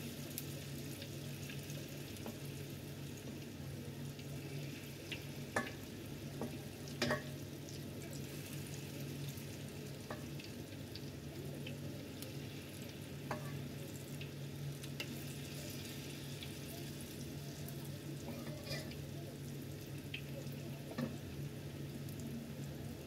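Flour-battered cauliflower florets deep-frying in a wok of oil over medium heat: a steady sizzle and bubbling, with a few light clicks as a fork turns the pieces against the wok.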